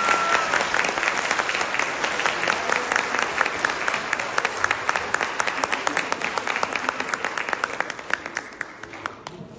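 Audience applauding after a flamenco guitar and dance number, dense clapping that tapers off near the end.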